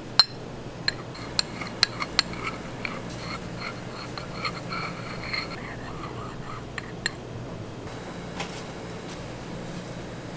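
Metal palette knife clicking and clinking against the plate and the metal cake turntable as whipped cream is spread, with a sharp click at the start and several more in the first few seconds. A run of faint, evenly spaced chirps follows in the middle, over a steady low hum.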